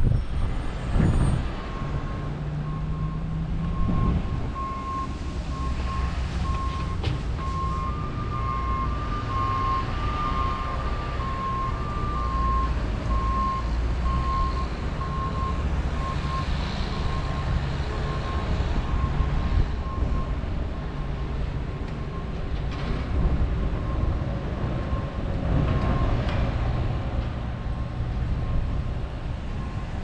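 Construction vehicle's engine running with its reversing alarm beeping steadily, a little over once a second. A second, slightly higher-pitched backup alarm overlaps it for a few seconds around the middle.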